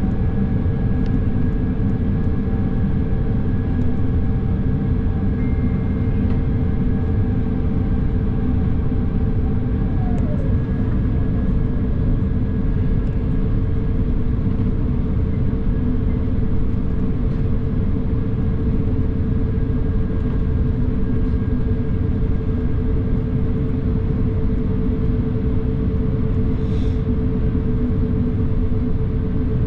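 Airbus A350 cabin noise: a steady rumble of engines and airflow with a few constant tones over it, one of which slides down and stops about ten seconds in.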